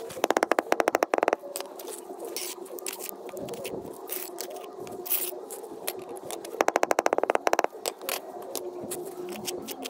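Steel pointing trowel scraping and pressing mortar into the joint beneath a stone coping slab, in short irregular strokes. Twice, near the start and about two-thirds in, a loud rapid rattle lasts about a second.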